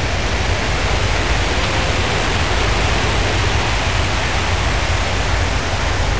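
Airflow rushing over the microphone of a camera mounted on a hang glider in fast flight: a loud, even rush of air with heavy low buffeting.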